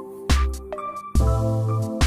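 Electronic background music with a heavy bass beat, about one thump a second, under a steady synth melody.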